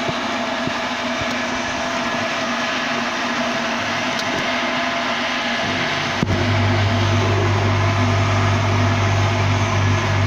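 Steady, loud workshop machinery noise. About six seconds in, a deep electrical hum switches on suddenly with a click and holds steady.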